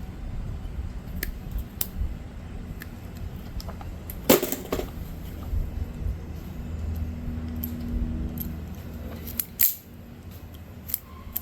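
Scattered clicks and clinks of small tools and parts being handled, the sharpest about four seconds in and again near the end, over a low steady hum.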